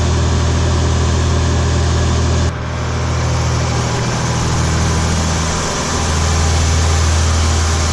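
John Deere 4020 tractor engine running steadily at a constant speed. About two and a half seconds in, the sound changes abruptly, then carries on the same way.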